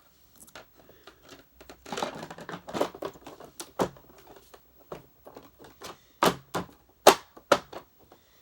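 Hard plastic vacuum cleaner parts being handled and fitted together: a run of irregular sharp clicks and knocks, with some rustling about two seconds in and the loudest knocks near the end.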